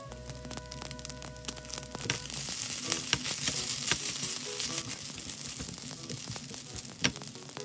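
Fried rice sizzling in a hot nonstick pan after a spoonful of pork cutlet sauce goes in. A spatula scrapes and taps against the pan, and the sizzle grows louder about two seconds in. There is one sharp tap near the end.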